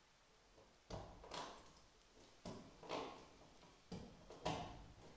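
Faint clicks and knocks of door-handle hardware being worked by hand, coming in pairs about every second and a half.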